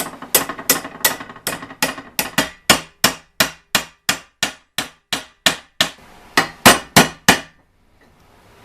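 Hand hammer peening over a steel pin on Model T pedal parts: a run of about twenty ringing metal-on-metal blows, roughly three a second, which stop about a second before the end.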